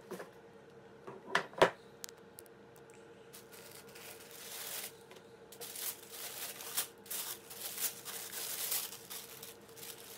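Two sharp knocks about a second in as a cardboard shoe box lid is lifted off, then tissue paper rustling and crinkling in irregular bursts as it is pulled open from around a pair of slides.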